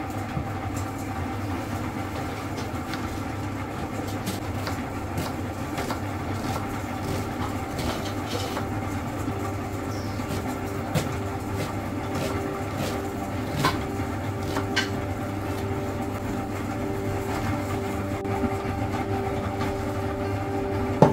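A few sharp taps of a kitchen knife striking a bamboo cutting board as an onion is cut, over a steady droning background with several held tones.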